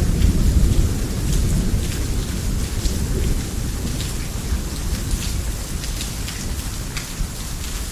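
Heavy rain on a roof, a dense steady patter with sharper drops splashing through it. A low rumble of thunder is loudest at the start and fades away over the next several seconds.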